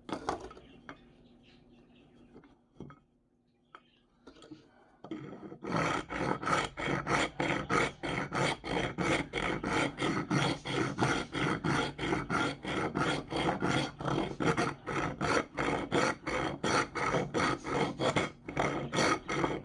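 A hand file or rasp worked in rapid, even scraping strokes, about three a second, starting after a quiet pause of about five seconds.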